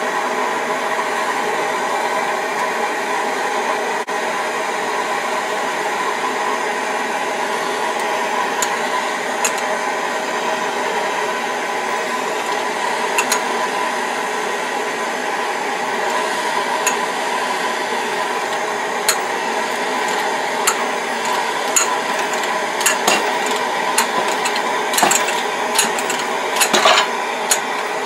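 Handheld gas torch burning with a steady rush as it heats a crankshaft counterweight to free a press-fitted crank pin. From about eight seconds in, sharp metallic clicks come from the hydraulic press and crank as the press handle is pumped, growing more frequent and louder near the end as the pin is loaded.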